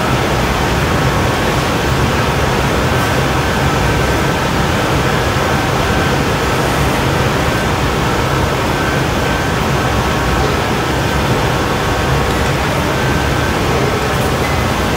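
Loud, steady roar of a glassblowing studio's gas-fired furnace and glory hole burners and ventilation fans, unbroken throughout, with a faint steady hum of tones mixed in.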